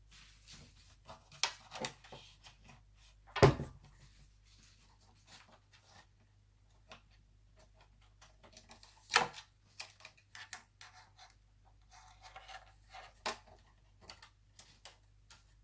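Scattered small clicks, taps and knocks of laptop parts and cables being handled, with two louder knocks about three and a half and nine seconds in.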